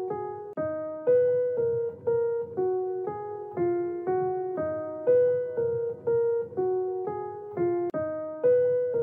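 Background keyboard music: a simple, repeating tune of single piano-like notes, about two a second, each note dying away before the next.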